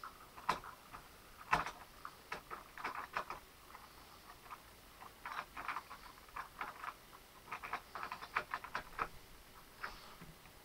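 Irregular light clicking and ticking, some single clicks and some quick clusters, faint over a quiet room background.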